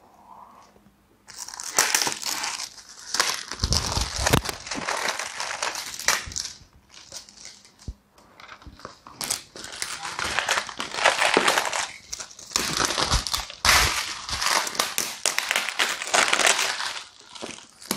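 Clear plastic wrap crinkling and crackling as it is torn open and pulled off a cardboard gift box, in irregular bursts that start about a second in.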